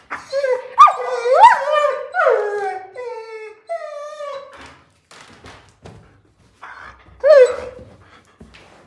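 German Shepherd puppy whining in a string of loud, pitched cries that slide up and down for about four seconds, then gives one more short whine near the end.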